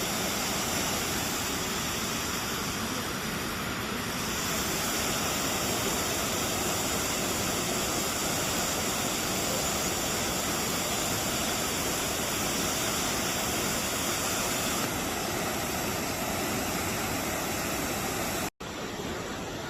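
A large waterfall rushing steadily close up, a dense, even sound of falling water with no break in it except a brief dropout near the end.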